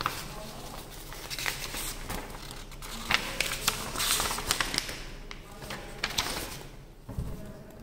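Paper pages of an instruction manual being leafed through and smoothed by hand, rustling and crackling, with a low thump near the end.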